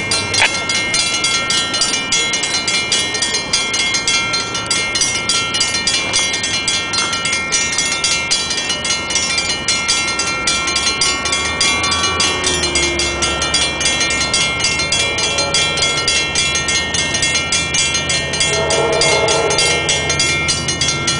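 Railroad grade-crossing warning bells ringing steadily as the crossing activates for an approaching train. A train horn starts sounding in the distance about three-quarters of the way through.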